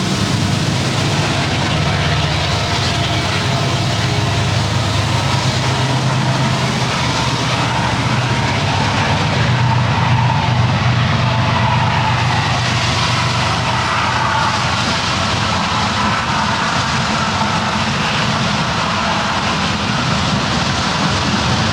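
Train rolling steadily along the tracks: a continuous rumble with a low hum underneath, unbroken throughout.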